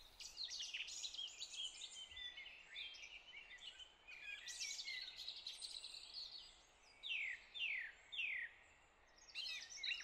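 Faint birdsong ambience: several songbirds chirping and trilling at once. About seven seconds in, one bird gives three quick downward-sliding whistles, then the chorus pauses briefly before picking up again.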